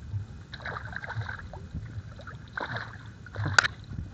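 Water sloshing and splashing around a wading angler as a hooked Nile tilapia is fought at close range, in several short bursts, with one sharp splash about three and a half seconds in.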